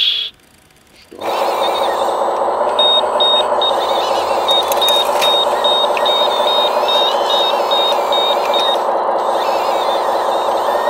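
An RC model wheel loader's sound module plays a steady diesel engine sound, starting about a second in. Through the middle it adds a high warning beeper, beeping two or three times a second.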